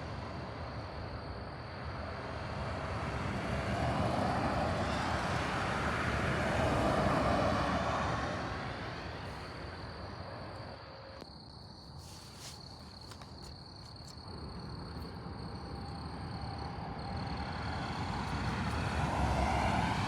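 Road vehicles passing by: tyre and engine noise swells to a peak about a third of the way in and fades away, then a second vehicle approaches and grows louder near the end.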